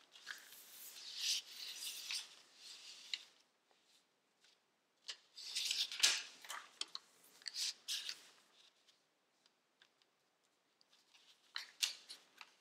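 Sheet of origami paper being folded and creased by hand, rustling and crinkling in two longer stretches. A pause follows, then a few short sharp crackles near the end.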